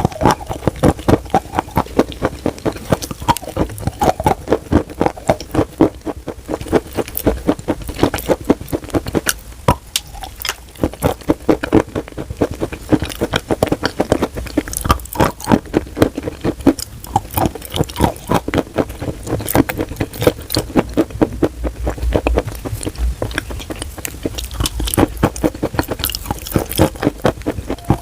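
Chalk being bitten and chewed close up, a wet crunch: a dense run of crisp crackles and crunches, several a second, without a break.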